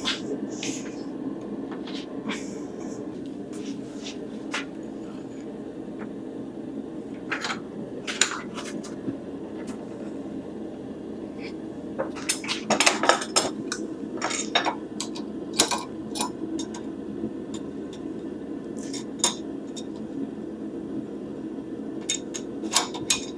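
Steel tools clinking and clanking against a stainless steel knife blank as it is twisted, over a steady low rushing noise. The clinks come singly and scattered, with a quick run of them about halfway through.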